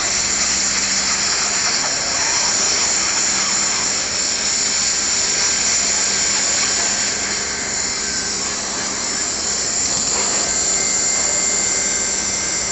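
Hot-air welding gun blowing steadily, a high hiss with no breaks, as a PVC roofing patch is heat-welded.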